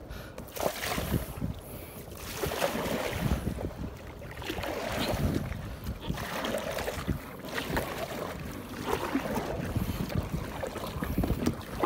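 Kayak paddle strokes splashing through choppy sea water, swelling every couple of seconds, with wind buffeting the microphone.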